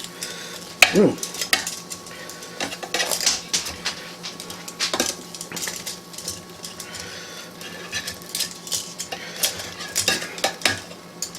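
Metal utensil clinking and scraping against an air fryer basket as cooked chicken drumsticks are moved about, in irregular clicks with one sharp knock about a second in.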